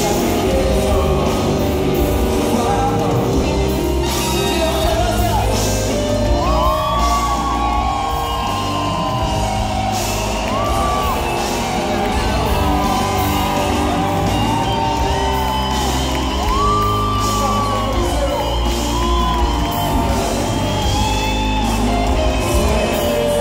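Live reggae band playing in a large hall, heard from the audience: drums, bass, guitars and keyboards under a lead singer holding long sung notes, with shouts from the crowd.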